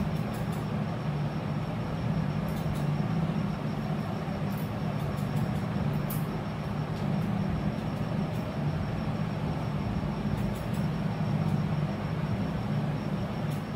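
A steady low hum over a constant rushing noise, like a running motor, with a few faint short ticks scattered through it.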